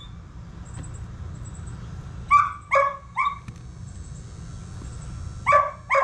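A dog barking: three quick barks about two seconds in, then two more near the end.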